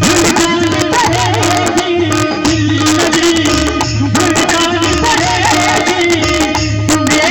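Indian folk-style music: a steady drone under a wavering, ornamented melody line, over a regular percussion beat.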